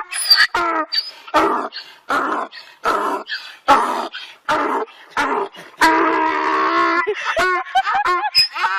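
A dog vocalizing: a string of short barks, roughly one every half second, then a drawn-out call lasting about a second some six seconds in, and quicker short calls near the end.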